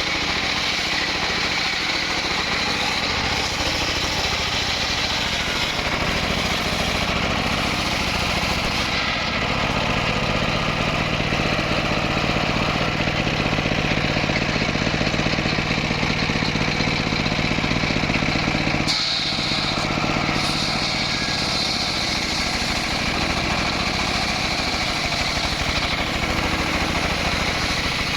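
Engine of a wood-cutting saw running steadily. About nine seconds in it settles into a steadier, lower note, and near nineteen seconds it dips briefly before picking up again.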